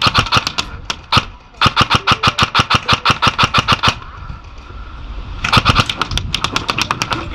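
Airsoft electric rifle, an upgraded Lancer Tactical LT-31 Mk18 AEG, firing full auto in rapid, evenly spaced shots. There is a short burst at the start, a single shot about a second in, a long burst of over two seconds, and another burst near the end.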